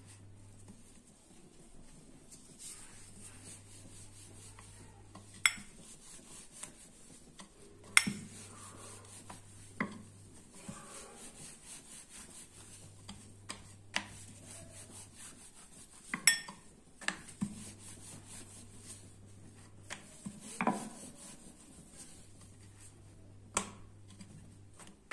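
Wooden rolling pin rolling out methi paratha dough on a wooden board (chakla): a rubbing, rolling sound broken by several short, sharp wooden knocks as the pin and board tap together.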